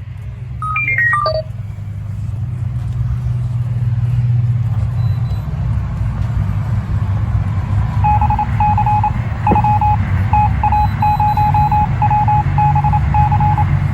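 Handheld OBD-II code scanner beeping as it links up to the car: a short falling run of tones about a second in, then from about eight seconds in, quick strings of short high beeps. A steady low rumble runs underneath.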